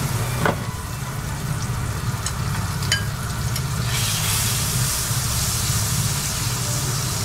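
Butter melting and sizzling in a hot frying pan, with a couple of light clicks; the sizzle grows louder about four seconds in as the butter foams.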